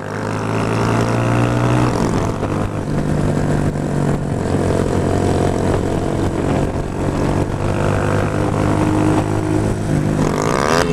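Motorcycle engine running, heard from an on-bike camera with a steady rush of wind noise; its pitch steps about two seconds in and wavers rapidly up and down near the end.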